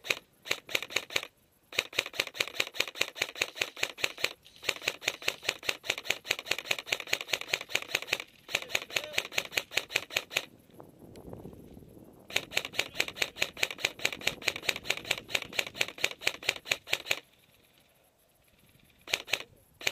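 Rapid, even mechanical clicking, about six clicks a second, in runs of a few seconds with short pauses; it stops a few seconds before the end.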